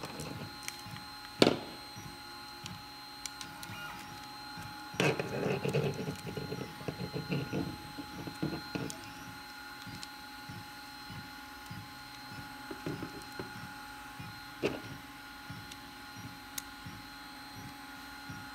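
Small plastic parts of an opened 3D printing pen clicking and rattling as the casing and gearbox are handled and worked with a screwdriver. There is a sharp click about a second and a half in, a few seconds of clattering and scraping from about five seconds in, and a couple more clicks later, over a steady faint hum.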